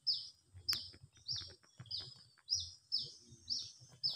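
A bird repeating a short, high note that falls in pitch, roughly every half second and over and over. Faint low thuds sit beneath it, and there is one sharp click about a second in.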